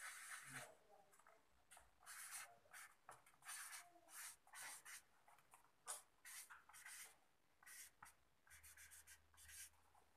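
Faint handwriting: short, irregular scratching strokes of a pen or marker on a writing surface, coming in quick runs with small pauses between them.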